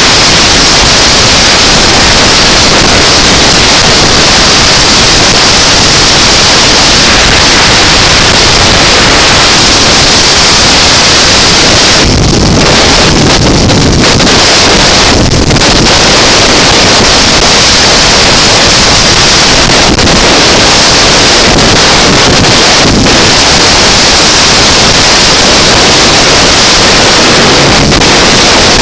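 Loud, steady wind noise hitting the microphone of a camera on a motorcycle ridden at highway speed: a dense hiss with no engine note standing out.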